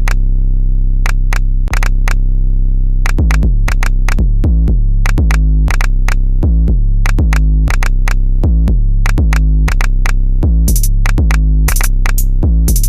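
Electronic intro music: a synthesizer bass line under drum-machine hits, sparse at first, then a steady beat from about three seconds in.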